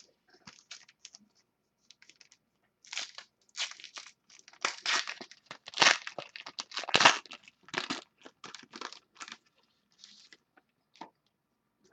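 Foil trading-card pack wrapper being torn open and crinkled by hand: a few faint ticks, then about six seconds of irregular crackling and tearing.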